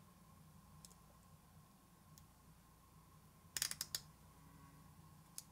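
Near-quiet room tone with a faint steady hum, broken by a quick cluster of small sharp clicks a little past halfway and a couple of single faint ticks: a small screw being handled and started by hand into an RC truck's differential case.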